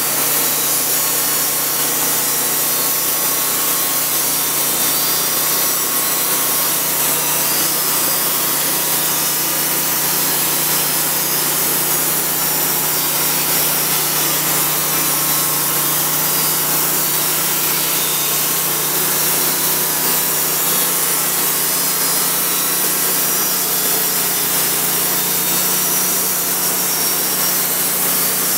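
Homemade bandsaw sawmill with a 22-horsepower V-twin engine, its band blade cutting lengthwise through a hemlock log as the saw head advances. The engine and blade run steadily together without a break.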